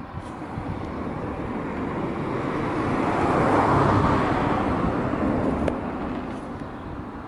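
A road vehicle passing by: a rushing sound that swells to its loudest about midway and then fades away.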